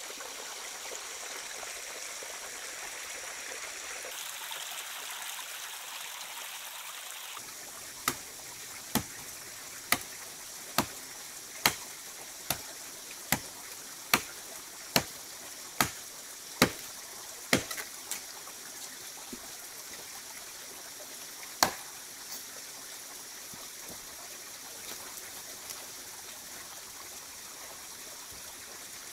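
Shallow stream trickling over rocks. After a cut, a machete chops into jungle undergrowth: about a dozen sharp strikes less than a second apart, then one more a few seconds later.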